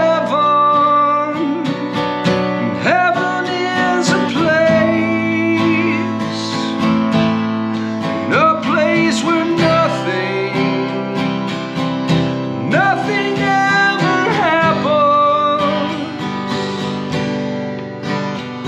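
Acoustic guitar played solo, plucked chords and melody notes ringing on through an instrumental passage, with a wordless voice sliding up and down between notes a few times.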